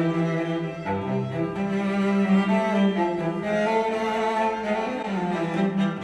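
Slow classical music on bowed strings, with a cello carrying long held low notes, played through a pair of PreSonus E5 XT studio monitors and picked up by a microphone in the room.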